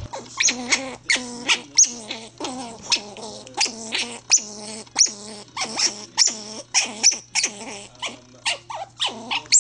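An animal making a rapid series of short, pitched yelping calls, about two or three a second.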